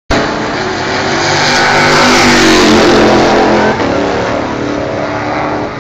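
Stock Car Brasil race car's V8 engine at high revs passing close by, its pitch rising and then falling. Nearly four seconds in, the level drops sharply and the engine runs on more quietly.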